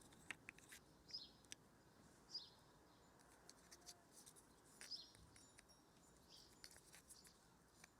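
Near silence: a bird chirps faintly now and then, with a few light clicks.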